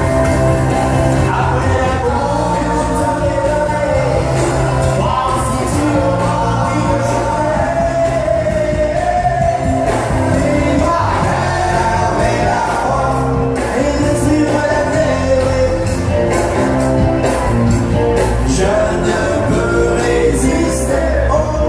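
Live country-western band music with a singer, guitar and drums over PA loudspeakers, playing steadily for dancing.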